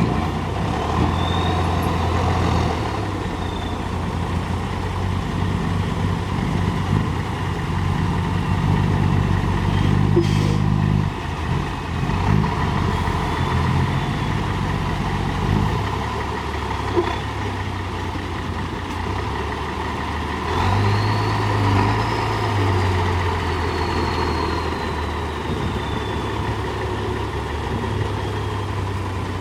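Heavy diesel engine of earthmoving machinery running steadily and revving up under load twice, near the start and again about twenty seconds in, with a faint whine rising and falling above it. There is one sharp click about ten seconds in.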